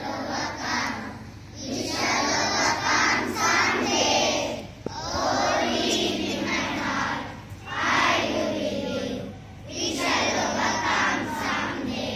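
A group of children's voices in unison, singing or chanting together in several phrases a second or two long, with short breaks between them.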